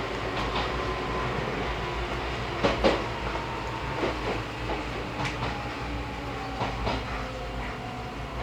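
Izuhakone Railway 3000-series electric train running, heard from inside the car: a steady rumble with a faint whine that slowly drops in pitch. The wheels clack over rail joints, loudest as a double clack about three seconds in, with lighter clacks after.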